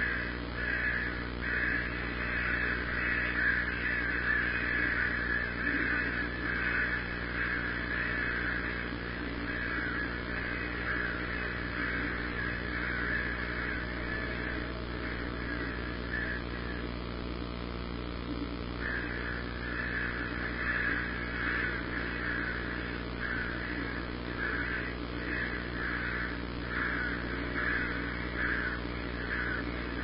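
Birds calling in a long run of short, repeated caw-like calls, many overlapping, with a brief pause a little past halfway.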